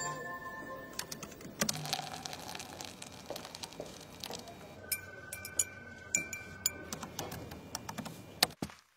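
Light clicks, taps and glass clinks, with a steady high tone for about two seconds midway, ending with a few keyboard keystrokes.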